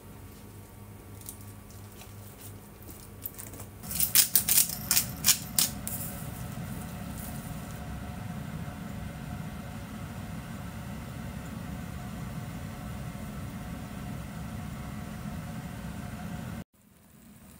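Faint handling taps, then a gas stove's igniter clicking rapidly for about two seconds, followed by the gas burner's flame running as a steady low rush. The sound cuts off abruptly near the end.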